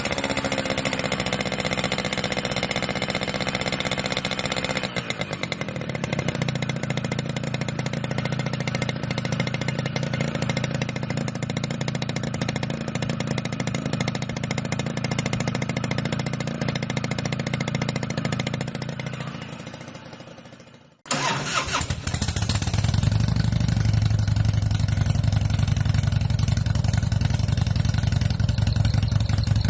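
A motorcycle engine running steadily, its sound shifting about five seconds in, then fading away about two-thirds of the way through. A different motorcycle engine cuts in abruptly, louder and deeper, and runs steadily to the end.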